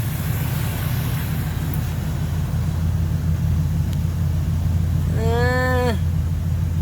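1996 Chevrolet Caprice idling with its air conditioning running on full blast, a steady low hum. About five seconds in, a short pitched sound rises and falls for under a second.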